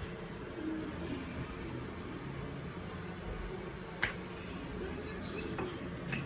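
Wooden rolling pin (belna) rolling out roti dough on a board, a low steady rumble, with one sharp knock about four seconds in.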